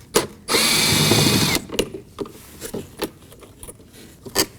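A cordless power screwdriver runs for about a second, backing out the Phillips screw in the middle of a car's interior door panel. Scattered clicks and taps follow, with a sharp click near the end.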